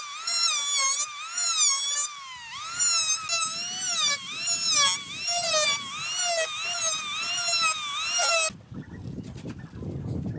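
Handheld electric planer whining at a high pitch as it is pushed across a wooden tabletop. The pitch dips under load and recovers again and again with each pass. It cuts off abruptly about eight and a half seconds in, leaving a quieter low rumble.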